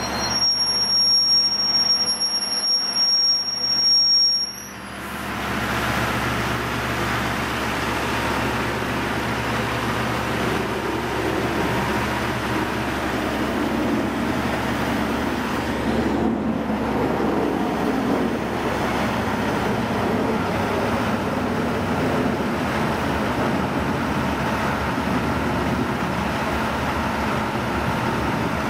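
Steel wheels squealing with high, steady tones for the first four seconds or so as the TGC4 track geometry car moves through the station, cutting off suddenly. Then the Plasser-built car's diesel engine running steadily at a standstill, a rough, even drone.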